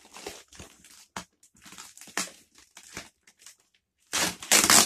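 Parcel packaging being handled, with scattered crinkles and small clicks, then a loud burst of crumpling rustle about four seconds in.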